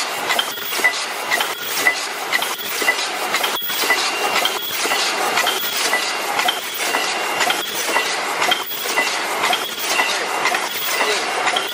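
Debao-5000S paper bucket forming machine running at full speed: a steady, dense mechanical clatter from its rotating turret and forming stations, with a regular beat of short clicks.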